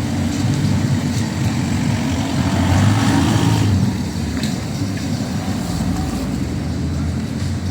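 Street traffic: motor vehicles running with a steady low rumble, swelling as one passes close about three seconds in.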